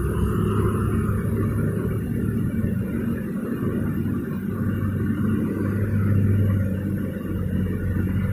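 Road traffic on a bridge running steadily with a low engine hum, mixed with the rush of water pouring over a small concrete weir.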